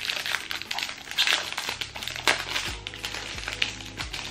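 Clear plastic wrapping crinkling and rustling as it is pulled off a small kraft-paper gift box by hand, with soft background music underneath.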